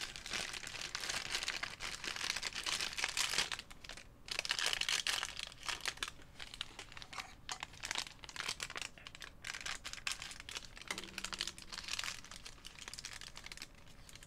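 Crinkling and rustling of a thin clear plastic parts bag being handled and opened, dense in the first several seconds and thinning to scattered crackles toward the end.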